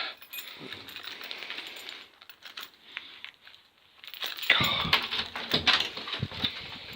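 Scattered metallic clinks and rattling at a locked door, with a louder clatter and knocks starting about four and a half seconds in.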